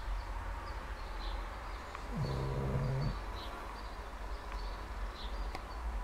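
Sleeping pug snoring: one drawn-out pitched snore about a second long, midway through, starting with a short drop in pitch and then holding a low steady note.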